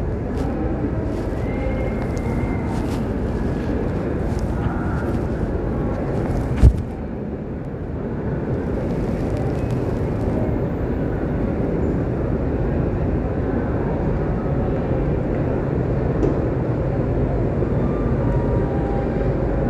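Passenger train rolling past a station platform: a steady low rumble of coaches and wheels. Scattered sharp clicks come in the first six seconds, and a single loud thump comes about seven seconds in.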